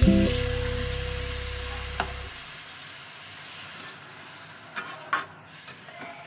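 Sizzling as water is poured into a hot kadai of frying chicken curry, the hiss fading steadily as the water takes the heat out of the pan. Near the end a couple of sharp metal spatula scrapes against the pan. The last note of background guitar music fades out in the first two seconds.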